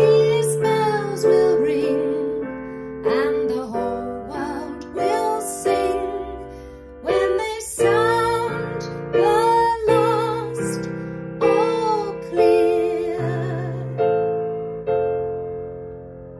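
A woman singing with vibrato to her own digital piano accompaniment. Near the end her voice stops and the piano holds a final chord that fades away.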